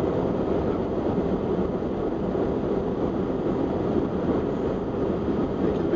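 Steady road noise inside a car driving on a highway: tyre rumble and wind noise with the engine underneath.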